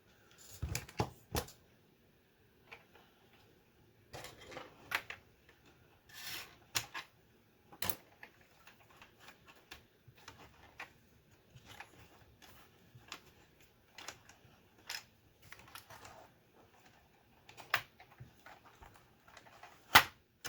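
Commodore 64 keyboard keycaps and plastic parts being handled and pressed into place during reassembly: irregular plastic clicks and taps, some in quick clusters, the sharpest one near the end.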